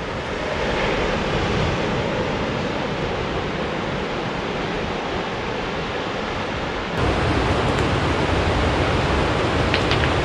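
Steady rushing of ocean surf mixed with wind on the microphone. About seven seconds in it changes abruptly to a louder, deeper rumble.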